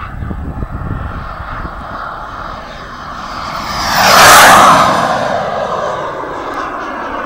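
A model Grumman Cougar jet making a fast low pass. Its jet sound swells to a loud whoosh about four seconds in, then drops in pitch as it goes away.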